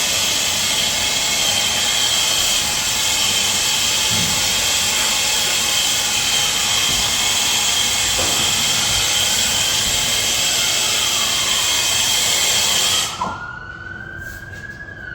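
Plumber's soldering torch flame hissing steadily with a thin whistle, shut off suddenly near the end. A fire truck siren wails beneath it and stands out once the torch stops, its pitch rising and then falling.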